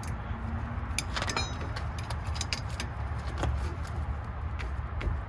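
Scattered light metallic clicks and clinks of a ring spanner working a 13 mm brake caliper bolt, a few in quick succession about a second in, over a steady low rumble.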